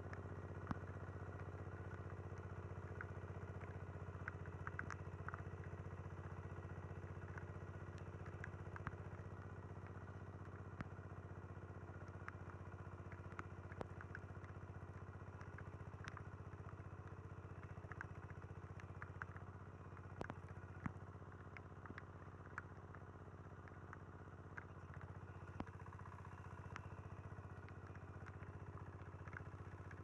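Small engine of a homemade tracked vehicle running steadily under load while it drags a plough through the soil. Scattered sharp clicks and clatter run through it, and it grows a little fainter as the vehicle moves away.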